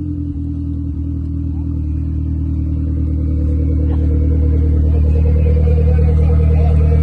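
A 4x4's engine running steadily at low revs, slowly growing louder.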